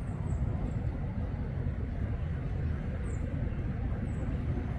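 A steady low rumble, with a few faint, short, high-pitched bird chirps above it: three in quick succession at the start, then one about three seconds in and another about four seconds in.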